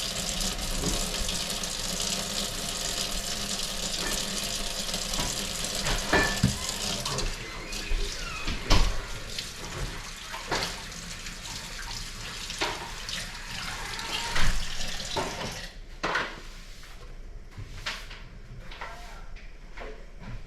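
Kitchen tap running into a sink for the first several seconds, then eases off to scattered knocks and clatter of dishes and utensils.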